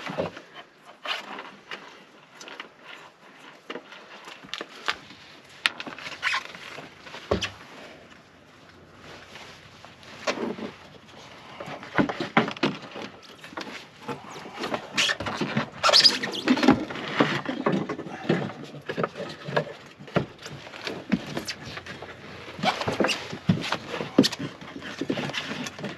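Irregular clicks, knocks, rubbing and small squeaks of parts being handled during diesel heater removal, busier and louder in the second half.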